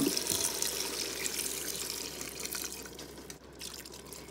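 Chicken broth poured in a steady stream from a carton into a steel Instant Pot inner pot over browned sausage and onions, splashing into the pot and growing quieter toward the end.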